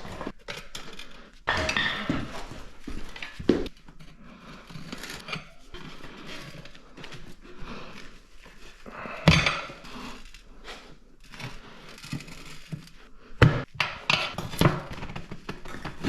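Metal tire levers clinking and scraping against a motorcycle wheel rim as the bead of a Michelin Anakee Wild rear tire is levered on, with irregular sharp knocks.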